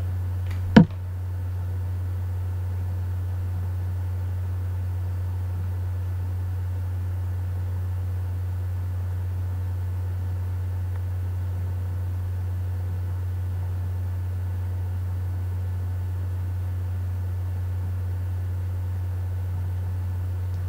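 A steady low hum with one sharp click about a second in.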